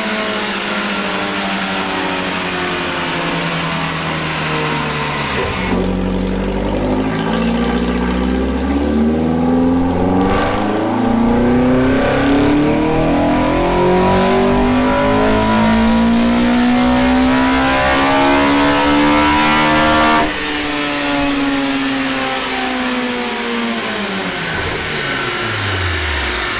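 Toyota 4A-GE 1.6-litre twin-cam four-cylinder breathing through individual throttle bodies and short velocity stacks, run on a chassis dyno. Its revs fall for the first few seconds, then a full-throttle pull climbs steadily from low revs to around 9,000 rpm over about fourteen seconds, the throttle is cut sharply at the top, and the engine winds down.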